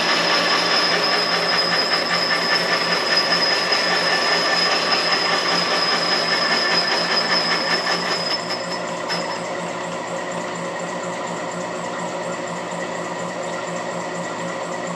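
A machine running steadily while it cuts the face of a sawmill saw collar, with a thin high whine from the cut over the machine's hum. About nine seconds in the cutting whine stops and the level drops, leaving the machine running alone.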